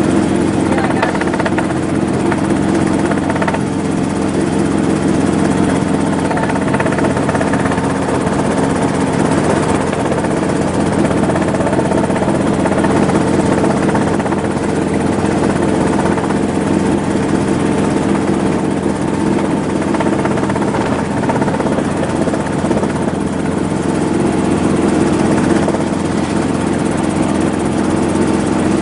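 Helicopter running steadily in flight: a constant engine drone with several steady tones and a fast rotor flutter, unchanging throughout.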